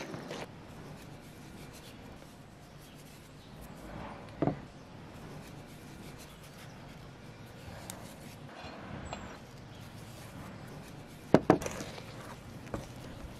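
Wooden spoon stirring and scraping thick corn flour batter in an enamel bowl, a soft rubbing sound. A sharp knock about four seconds in, and a couple of louder knocks near the end, the spoon striking the bowl.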